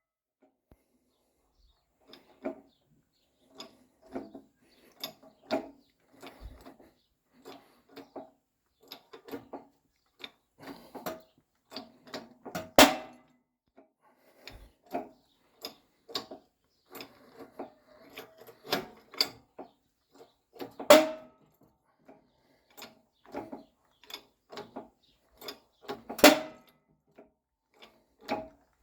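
Irregular clinks and knocks of hand tools and metal parts being handled, a few struck much harder than the rest, with a short metallic ring after each.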